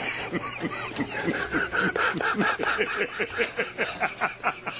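News anchors laughing uncontrollably: a fast, steady run of short breathy laughs, about four a second.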